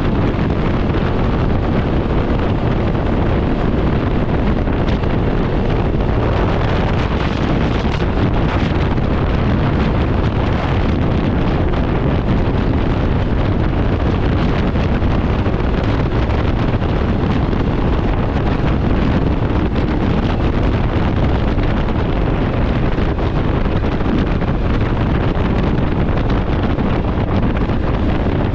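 Steady wind blasting the microphone of a Can-Am Ryker 900 three-wheeled motorcycle riding at speed, with the machine's running and road noise buried beneath it.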